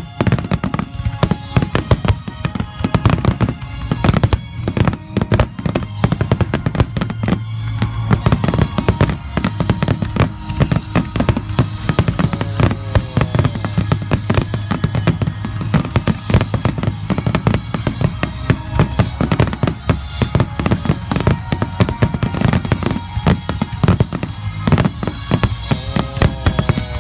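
Fireworks finale: a dense, continuous barrage of aerial shell bursts and crackling, many bangs a second, over music played through loudspeakers.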